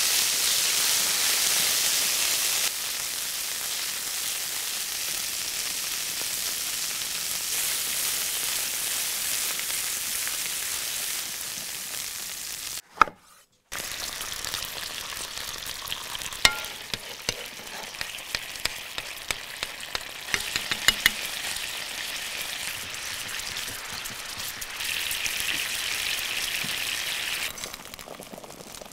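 Food sizzling as it fries in a hot pan, a steady hiss that drops out briefly about halfway. In the second half it is joined by a series of sharp clicks, like utensils tapping the pan.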